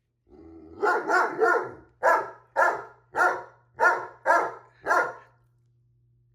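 Great Dane puppy barking repeatedly, about nine short barks in quick succession, then stopping about five seconds in.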